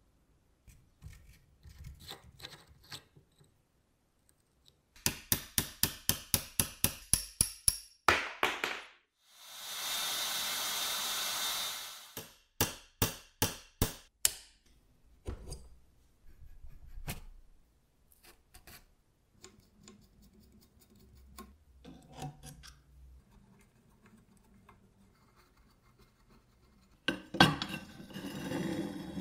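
Metal parts of an antique slicer being worked apart by hand: a run of about a dozen sharp clicks at about four a second, a steady hiss lasting about three seconds, a few more clicks, then metal scraping and rubbing near the end as a part is turned on a threaded rod.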